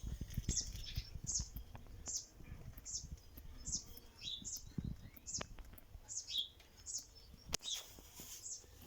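A small bird chirping over and over, short high peeps about one and a half a second. Low thuds in the first half and a sharp click near the end.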